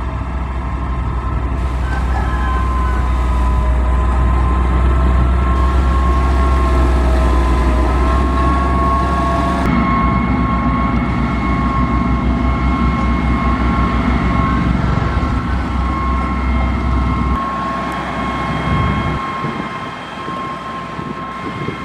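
Heavy construction machinery running: a deep diesel rumble under a steady high whine. The sound changes abruptly about ten seconds in, and the low rumble drops away near the end.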